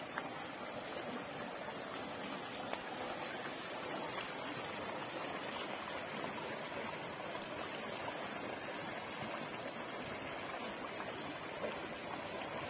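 Shallow rocky stream running over stones, a steady rush of water, with a few faint clicks.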